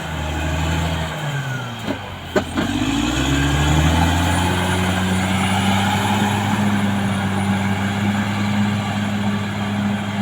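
Caterpillar D6R XL bulldozer's diesel engine running under load: its revs sag about a second in and climb back up by about three seconds, then hold steady. Two sharp metallic clanks come about two seconds in.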